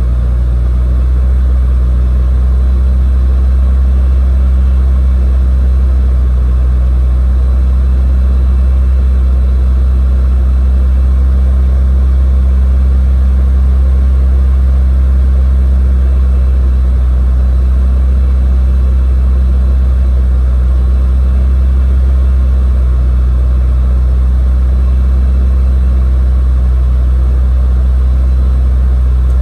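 Chevrolet Cobalt SS's freshly installed supercharged LSJ 2.0-litre four-cylinder engine running steadily at a held speed of about 2,000 rpm, to help its piston rings seat on its first run.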